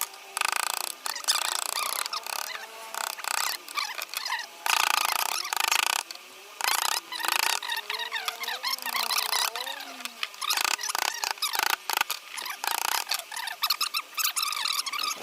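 Hand carving of wood: irregular scraping strokes of a chisel cutting into the panel, with short pauses, light taps and occasional squeaks.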